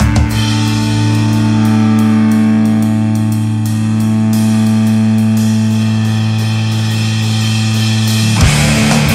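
Heavy rock music: a distorted guitar and bass chord held and left ringing, with light cymbal strokes over its first half. The full band comes back in near the end.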